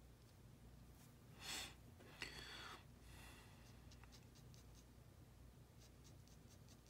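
Faint scratching of a ballpoint ink pen on paper: a few short strokes about one and a half to three seconds in, then scattered light ticks of the pen tip.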